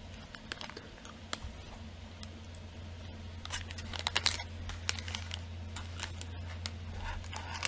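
A sour lemon gumball being chewed close to the microphone: faint scattered clicks and crunches, busiest around the middle, over a steady low electrical hum.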